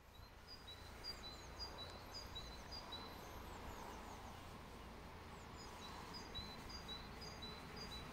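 A small songbird singing a string of short, high notes alternating between two pitches, pausing about three seconds in and then starting again, over a faint steady low rumble.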